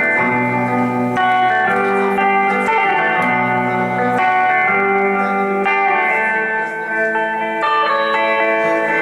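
Acoustic guitars playing an instrumental passage between sung lines of a slow country-soul ballad, with sustained chords changing about every second.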